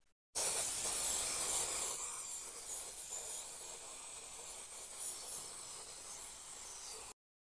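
Aerosol can of spray adhesive hissing in one long continuous spray as glue is applied to a car headliner board. It starts about half a second in, is loudest over the first second or so, and stops suddenly near the end.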